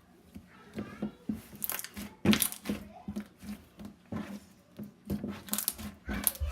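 Thick glossy slime with small foam beads being squished and pressed by hand: a run of irregular sticky pops and crackles.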